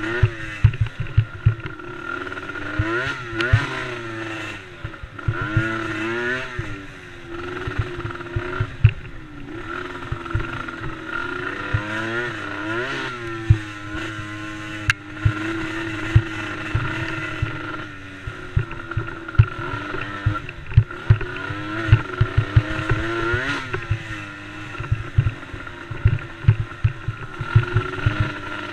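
A small youth race quad's engine revving up and down over and over as it is ridden around the track, with frequent short low thumps.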